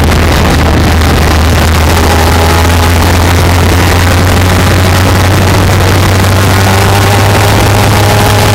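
Kawasaki Ninja 250/300 parallel-twin running through a Yoshimura slip-on exhaust while riding at a steady pace, heard right beside the muffler: a loud, steady, low exhaust drone.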